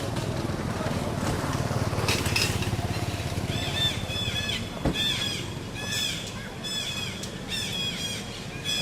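A run of short, high, arched chirping calls, about two a second, beginning a few seconds in, over a steady low motor-like rumble.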